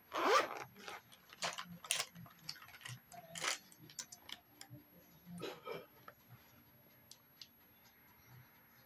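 Irregular small clicks, taps and short rustles of makeup items being handled, loudest at the very start and thinning out after about six seconds.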